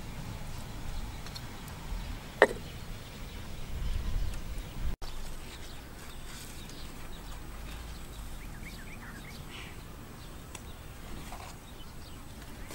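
Outdoor ambience: a low rumble of wind on the microphone with faint, scattered bird chirps, and one sharp knock about two and a half seconds in.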